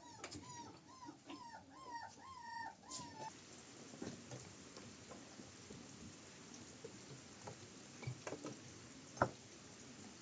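A dog whining in short, arched cries, about two or three a second, stopping about three seconds in. After that, faint rain patter with a few sharp ticks.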